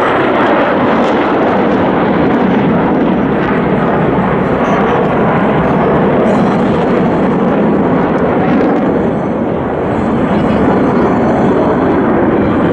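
Jet noise from the Black Eagles' KAI T-50B jets, each powered by a single F404 turbofan, flying overhead during a display. The sound is loud and steady, easing off slightly a little before ten seconds in.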